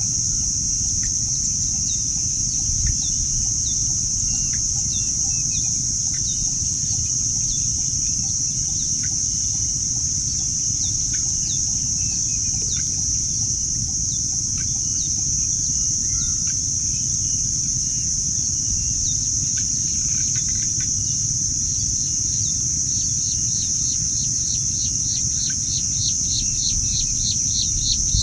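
Outdoor insect and bird chorus: a steady high-pitched insect drone with scattered short falling chirps over a low rumble. About two-thirds of the way in, a rapid run of short chirps takes over, about five a second.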